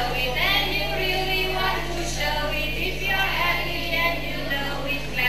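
A group of children singing a song together, the voices running on with short breaks between phrases, over a steady low electrical hum.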